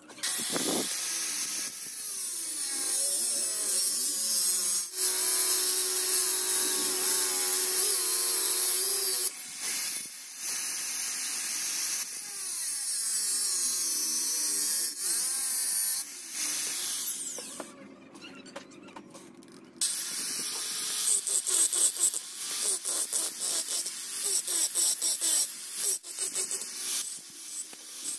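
Electric angle grinder cutting and grinding the steel of an old stone-saw blade, a high-pitched whine over the scrape of the disc on the metal. It pauses briefly about nine seconds in and drops low for a couple of seconds past the middle, then comes back in short, broken passes.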